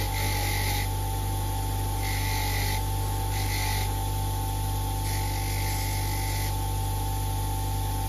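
Bench grinder motor running with a steady hum and whine, while a small metal part is held against the spinning wheel four times in short bursts of scraping.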